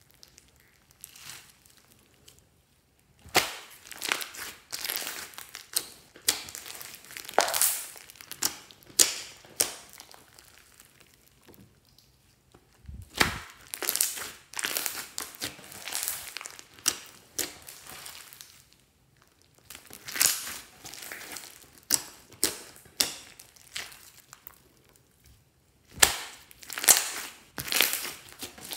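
Glossy slime mixed with small beads being kneaded, pressed and stretched by hand: crackling, squishing sounds in bursts of a few seconds with short quiet gaps. There is a low thud about halfway through and another near the end.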